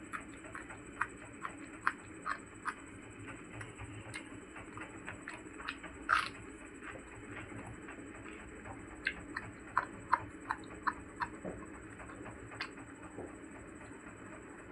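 Close-miked eating sounds: irregular soft chewing clicks and mouth smacks, about one or two a second, with a louder one about six seconds in.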